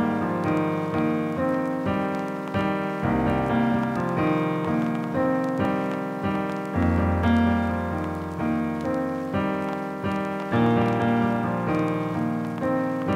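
Keyboard chords in a piano-like tone, the intro of a future bass track: each chord is struck and fades before the next, in a steady rhythm, with a deep bass note joining near the middle.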